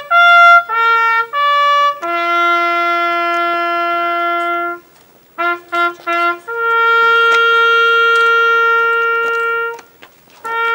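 A solo trumpet plays a slow ceremonial bugle call on its few natural notes. There are a few short notes, then a long held low note, three quick repeated notes on that pitch, and another long held note, with the call going on near the end.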